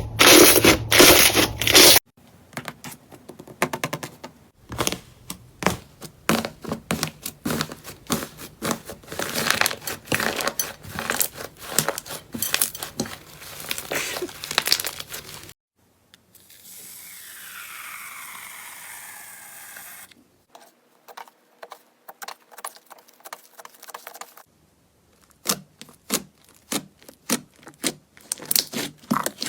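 Slime being pressed, squeezed and stretched close to the microphone, giving dense crackling and popping. The first two seconds hold louder crunching. A smoother, even stretch without clicks comes a little past the middle. The sound changes abruptly several times as one clip cuts to the next.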